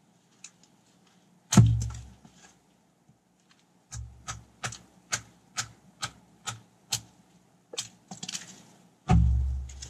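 Hatchet chopping wood on a stump chopping block: a heavy chop with a deep thud about a second and a half in and another near the end, with a run of lighter, even knocks, about two a second, in between.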